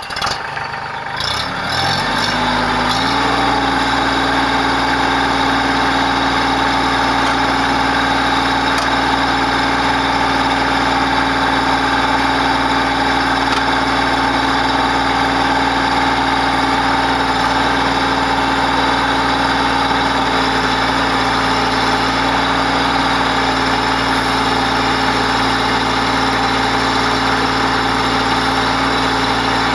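Mahindra Max 28XL tractor's diesel engine starting: it catches and picks up speed over the first few seconds, then settles into a steady idle.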